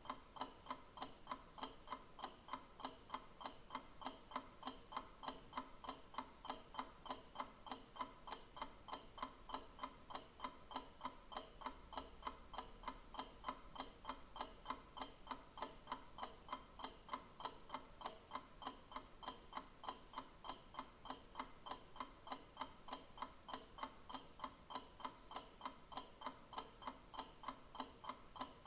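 Clock ticking steadily with even, regular ticks.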